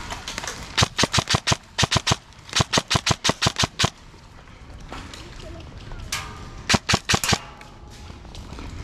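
Airsoft gun firing in quick strings of sharp shots, about six or seven a second, with three strings in the first four seconds and a shorter one near the end.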